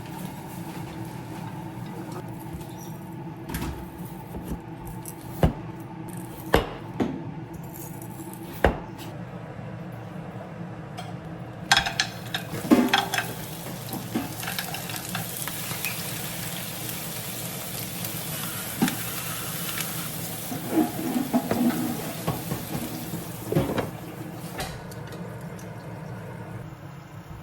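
Kitchen cooking sounds over a steady hum: a few sharp knocks of utensils on pots and dishes, then, from about halfway, food sizzling in a hot pan while it is stirred, with utensil clatter.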